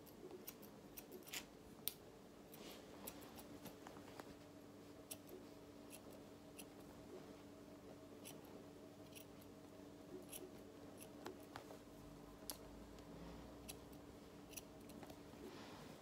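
Hairdressing scissors snipping dry short hair, the blades closing in quiet, irregular snips about once or twice a second, while stray bits are trimmed away and the cut is blended.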